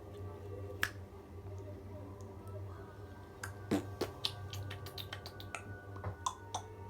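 A run of sharp, irregular clicks and taps, one about a second in and a quicker cluster in the second half, over a steady low hum.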